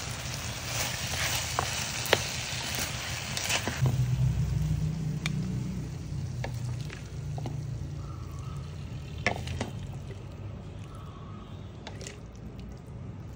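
Sweet and sour pork sizzling in a wok while a metal spatula stirs and scrapes it, with sharp clicks of the spatula on the wok. After about four seconds the sizzle dies down under a low hum, and a few more clicks come as the food is scooped out onto a plate.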